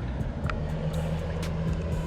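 Trolling motor on a small boat running steadily with a low hum.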